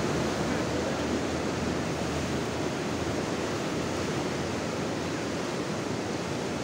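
Ocean surf breaking and washing up a beach, a steady rush of foaming water.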